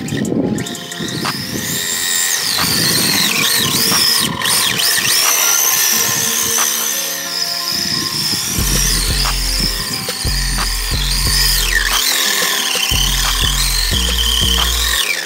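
High-pitched whine of a 1/10 RC touring car's 13.5T sensored brushless motor and belt drive, gliding up and down in pitch as the throttle is worked. Background music runs under it, and a heavy bass beat comes in about eight or nine seconds in.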